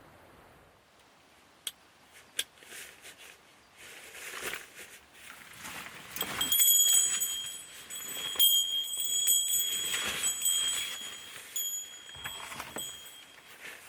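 A small metal bell jingling in uneven shakes, starting about six seconds in, after a few sharp clicks and some rustling.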